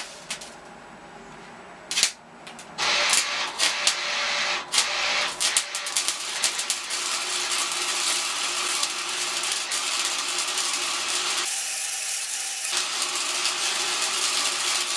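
A 110-volt flux-core wire-feed welder arc-welding steel tubing. A few short tack strikes come first, then a continuous crackling bead from about three seconds in, with a brief break about three quarters of the way through.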